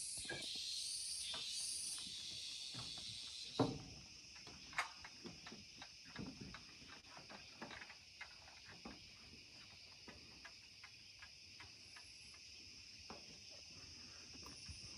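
Rainforest insect chorus, a high buzzing that pulses in regular beats for the first few seconds, then runs on as an even high whine. Scattered light clicks and knocks sound through it, with one louder knock about three and a half seconds in.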